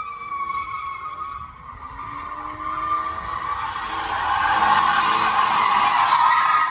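BMW E36 3 Series coupe drifting: its rear tyres squeal and scrub while the engine revs up, held at high revs in the slide. The tyre squeal grows much louder over the last two seconds as the car slides close by.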